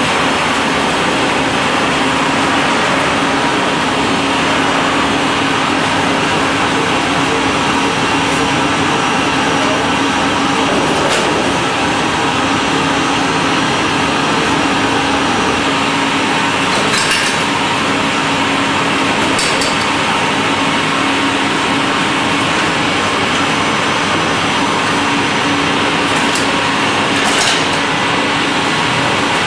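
Olive oil mill machinery running with a loud, steady drone and an even hum, with a few light clicks scattered through it.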